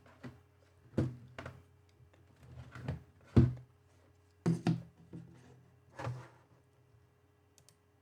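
A series of about eight thumps and knocks from equipment being handled on a desk, the loudest about three and a half seconds in. A steady low electrical hum runs underneath.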